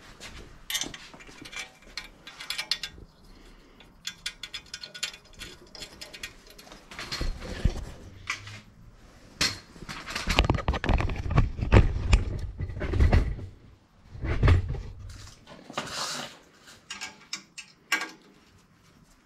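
Metal tools and a steel bicycle frame being handled and shifted about on a cluttered workbench, with irregular clinks, clanks and knocks. Heavier thumps and rumbling handling noise come through the middle stretch.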